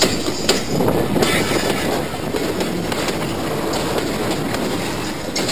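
Passenger train hauled by Class 55 Deltic D9009 running along the line, heard from a coach window: a steady rush of rolling and wind noise with the wheels clicking over rail joints.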